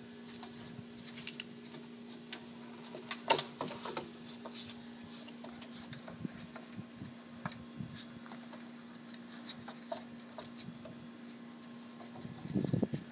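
Rhodesian Ridgeback puppies' claws clicking, tapping and scrabbling on a corrugated tunnel, in scattered irregular taps with a sharper flurry about three seconds in, over a steady low hum. Near the end there is a louder scuffle close to the microphone.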